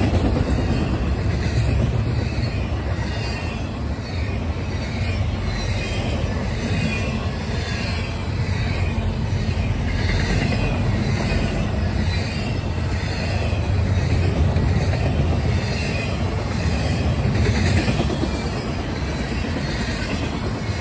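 Double-stack intermodal freight cars rolling past at speed: a steady low rumble of steel wheels on the rails, with fainter high wheel noise above it.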